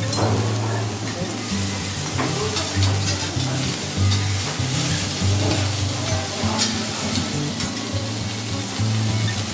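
Food sizzling on a flat steel teppanyaki griddle, with garlic slices frying in oil, and short clicks and scrapes of a metal spatula and fork as sliced onion and green pepper are pushed around the hot plate.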